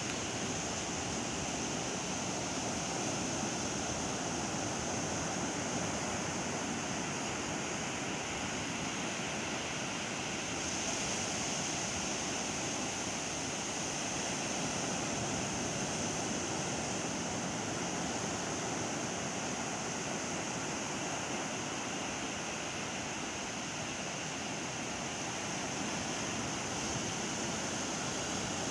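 Ocean surf washing onto a sandy beach: a steady, continuous rushing noise with no single breaks standing out. The hiss brightens slightly about ten seconds in.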